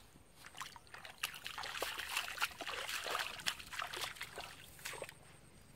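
Sloshing and splashing in shallow muddy water, with many quick wet slaps and drips, from a boy wading through the puddle while handling a freshly caught fish; it dies down near the end.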